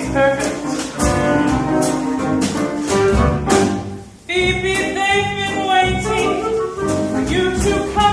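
A musical theatre pit band with drums plays a jazzy number, the drums keeping a steady beat. About four seconds in, after a brief drop, long held notes with vibrato come in over the band.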